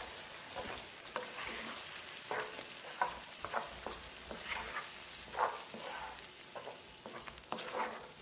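A spatula stirring a thick ground coriander-and-coconut paste frying with onions in an oiled non-stick pan: a steady sizzle under irregular scraping strokes.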